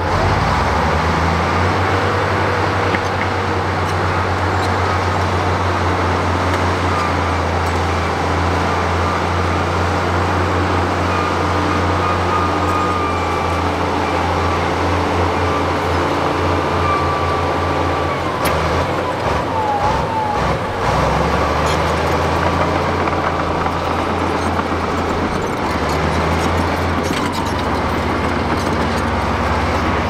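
Crawler bulldozer's diesel engine running steadily under load with a deep, even drone, with a few brief knocks and faint squeals around the middle.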